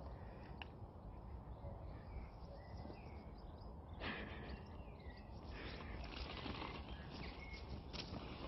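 Hollow plastic ball-pit balls clicking and shifting as a dog rolls among them, with a couple of sharper clacks about four seconds in and near the end, over a low steady outdoor rumble.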